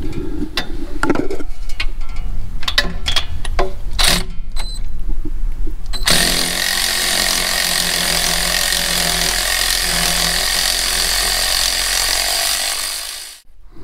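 Sharp metal clicks and taps as an electric ratchet is worked onto an exhaust manifold nut. About six seconds in, the ratchet's motor starts and runs steadily for about seven seconds, then stops suddenly. It is spinning off the stock manifold's oval-shaped locking nut, which stays snug to turn all the way off.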